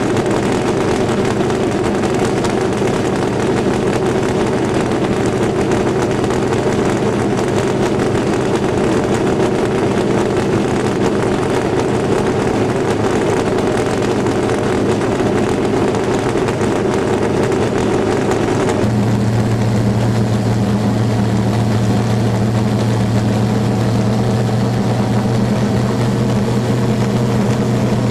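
1964 Ford Fairlane land-speed race car's engine idling steadily at the start line. About two-thirds of the way through, the sound turns deeper and stronger.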